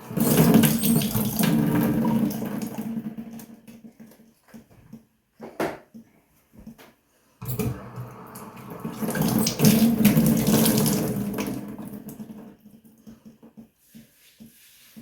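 Tap water running and splashing in a sink in two spells of several seconds, each fading out, as the freshly shaved head is rinsed.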